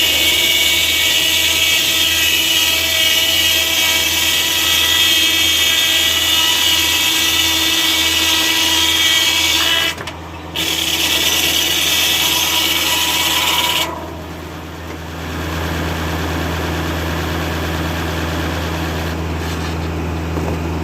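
Foley-Belsaw circular sawmill blade cutting through an oak log: a loud, steady ripping with a whine, breaking off for a moment about ten seconds in, then resuming until it ends about fourteen seconds in. The tractor engine driving the mill keeps running steadily beneath, alone after the cut ends.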